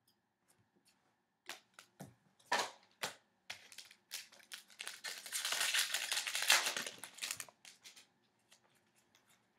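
Trading cards and their wrapper being handled: a few light clicks and rustles, then about three seconds of steady crinkling near the middle, then scattered light clicks.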